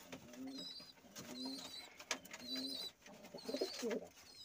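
Domestic pigeons cooing, with short low coos repeating about once a second. Thin, high wavering chirps come in between.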